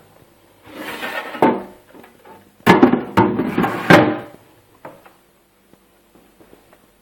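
Clunks and knocks with rubbing noise between them: a short run about a second in ending in a knock, then a louder run of three knocks from under three seconds in to about four seconds in.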